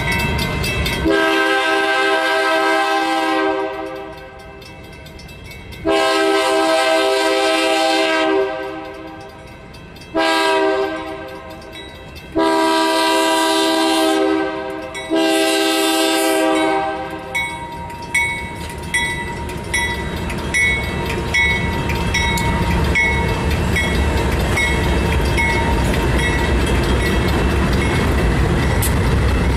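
BNSF GE Dash 9 (C44-9W) diesel locomotives sound five loud horn blasts for a grade crossing as they approach. Then the locomotives rumble past at close range while a bell dings steadily.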